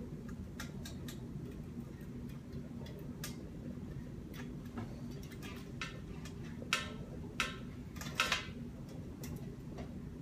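Burning matchsticks crackling: irregular small ticks and pops, with a few louder ones past the middle, over a steady low hum.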